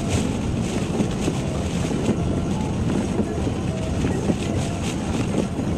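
Steady low rumble of a car ferry under way, mixed with storm wind and rain buffeting, heard from inside a car parked on its deck.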